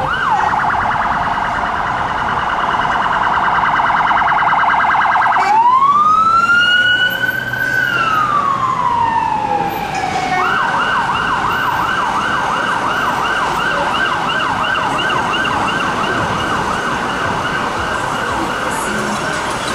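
Siren of an unmarked Metropolitan Police Vauxhall Astra Estate responding through traffic: a rapid warble, then about five seconds in one slow wail that rises, holds and falls, then a quicker repeating sweep of about two to three cycles a second, over general traffic noise.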